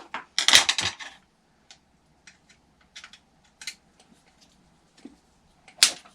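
Small clicks and taps of a hand tool working metal fasteners, as engine mount screws are tightened to lock in the spur gear mesh. There is a short rustling burst about half a second in and a sharper click near the end.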